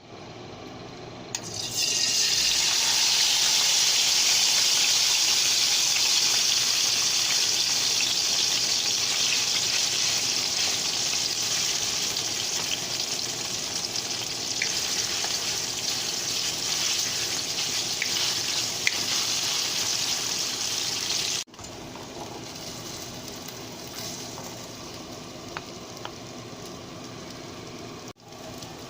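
Food sizzling loudly in hot oil in a stir-fry pan. It starts suddenly as the food goes in, then slowly settles. After a cut, a quieter sizzle carries on.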